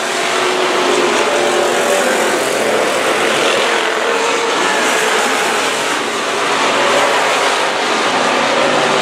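Dirt-track hobby-class stock car engines running on the oval, a steady loud drone.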